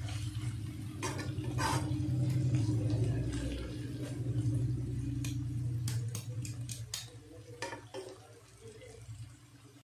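A metal slotted spoon stirring and scraping potatoes and fenugreek leaves in a kadhai, with a few sharp clinks of the spoon against the pan. Under it runs a steady low hum that fades out after about seven seconds.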